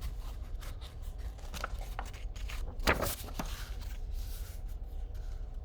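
Paper rustling and light clicks of a picture book being handled, with one louder rustle about three seconds in, as a page is turned. A steady low hum runs underneath.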